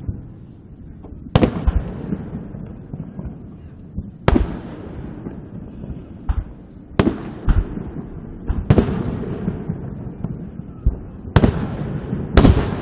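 Aerial fireworks shells bursting: about seven booms a second or more apart, each trailing off in a long rumbling echo, with two close together near the end.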